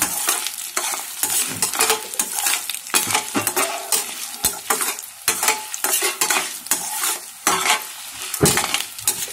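A tempering of mustard seeds, peanuts, dry red chilies and freshly added ginger frying and sizzling in hot oil and ghee. It is being stirred, with quick, irregular scrapes of the utensil against the pan.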